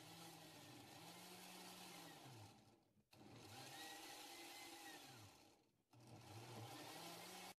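Oster countertop blender puréeing tomatillos, chiles and greens, running in three bursts on a preset program. The motor winds down and picks back up twice between the bursts.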